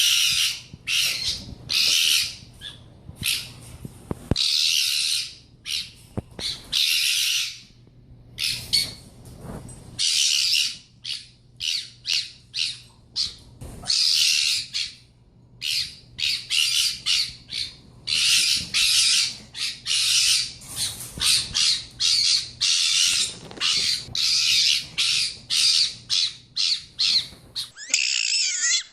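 Fennec fox screaming: a long run of harsh, high-pitched screeching calls, some drawn out for about a second and many short ones in quick irregular succession.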